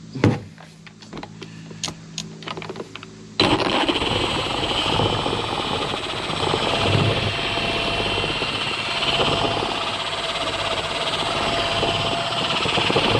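A few light clicks, then about three seconds in a Milwaukee cordless random-orbital polisher switches on and runs steadily, its heavy cutting pad working cutting cream over the truck's paint. It stops near the end.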